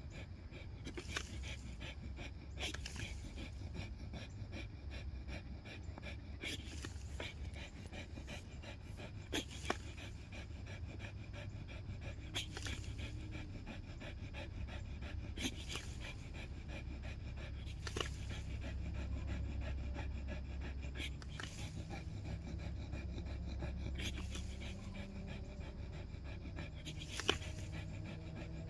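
Pit bull panting, with scattered sharp clicks every second or two over a steady low rumble.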